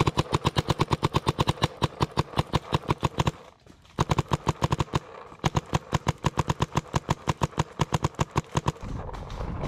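Adrenalin Featherlite Angel LCD electropneumatic paintball marker firing fast strings of shots, roughly ten a second, with a short break about three and a half seconds in. Shortly before the end the firing stops and gives way to rustling movement noise.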